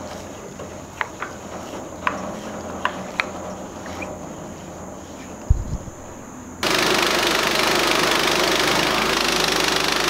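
Portable band sawmill's engine running steadily at low power, with a few light clicks and a thump while the blade head is lowered on its height scale. About two-thirds through it changes abruptly to the much louder, even noise of the band blade sawing through an ash log.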